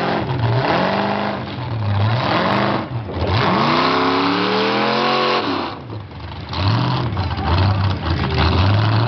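A lifted 4x4 truck's engine revving hard in repeated surges as it pushes through deep mud, the pitch climbing and dropping with each rev, the longest surge about halfway through. Under it runs a steady rushing noise of tyres churning mud.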